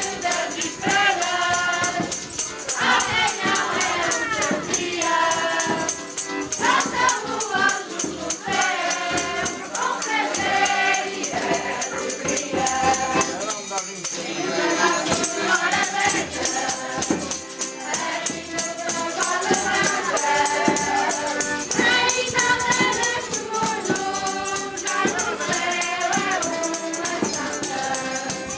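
A mixed group of men and women singing a traditional carol together from song sheets. A piano accordion plays along, and a tambourine jingles on the beat.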